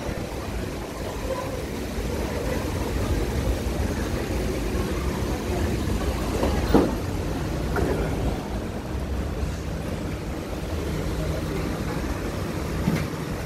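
SMRT C151B metro train drawing to a stop at the platform and standing, a steady low rumble with station noise. A short, sharp sound stands out about halfway through.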